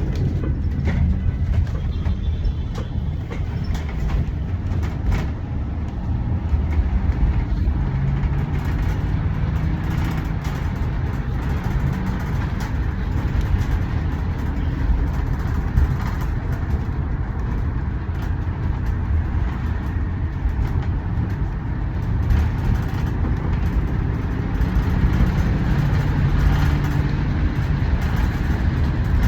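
Steady rumble of motor vehicle traffic, with a low engine hum that swells about eight seconds in and again near the end.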